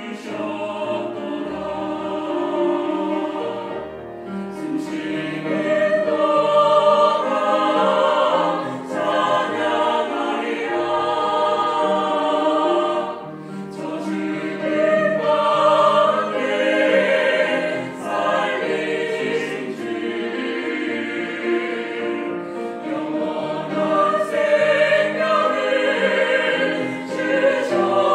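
Mixed church choir, men and women, singing a hymn anthem in Korean, accompanied by piano and strings.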